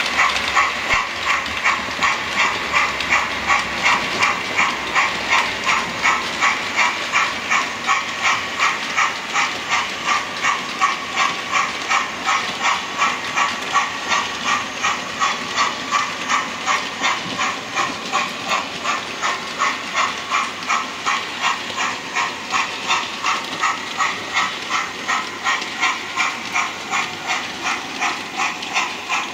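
Model steam locomotive hauling a goods train, with a steady rhythmic chuff of about two beats a second and a fine clicking running through it.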